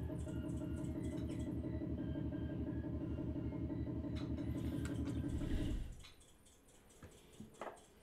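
Background music with a steady pulse and held notes, which stops about six seconds in; after it comes a quiet stretch with scattered small clicks and drips, typical of water and wet clay being handled.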